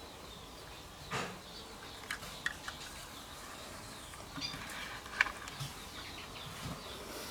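Outdoor ambience with faint bird chirps, broken by a few short, light clicks and taps, the sharpest about five seconds in.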